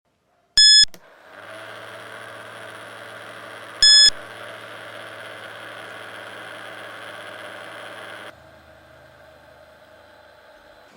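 Two short, loud electronic beeps about three seconds apart, over the steady hum of a small motor running. The hum drops to a quieter level about eight seconds in.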